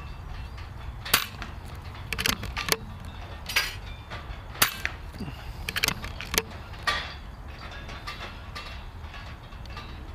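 Air rifle being fired and its action cycled: a series of sharp clicks and clacks, some single and some in quick clusters, over a steady low background rumble.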